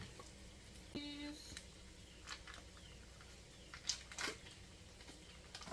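Faint kitchen handling sounds: a short squeak about a second in, then a few light clicks and taps.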